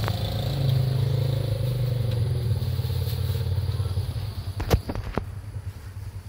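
A motor vehicle's engine running close by, loudest near the start and fading as it moves off. A few sharp clacks come about three-quarters of the way through.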